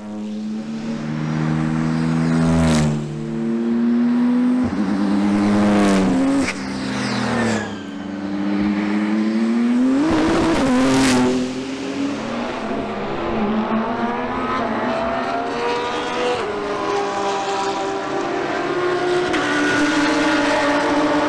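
BMW M4 GT3 race car's turbocharged straight-six, loud and accelerating hard through the gears in several passes edited together. The engine note climbs with each gear, breaks off sharply at the shifts or cuts, and rises then drops in pitch as the car goes by about ten seconds in.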